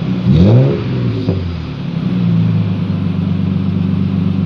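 Nissan Patrol engine running through a newly fitted straight-through muffler. It is blipped once about half a second in, the pitch rising and falling back, then settles to a steady idle.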